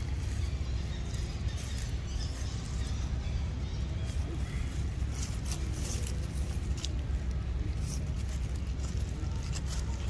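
Dry fallen leaves crackling and rustling in short, scattered clicks as monkeys move and forage in the leaf litter, over a steady low rumble.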